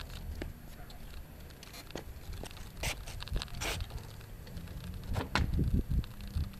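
Scrapes, clicks and knocks as a walk-behind string trimmer with its engine off is rolled on its wheels and front swivel caster across concrete and then tipped back. A few sharp clicks come in the middle, and the heaviest knocks come near the end.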